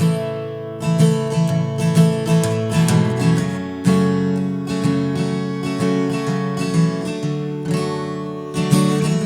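Acoustic guitar strummed in a steady rhythm, an instrumental passage of a folk song with no singing.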